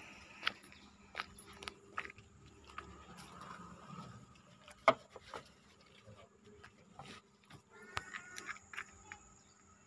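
Steel truck cab door being opened, with a sharp latch click about five seconds in. Scattered light knocks and crunches of footsteps on gravelly ground run around it.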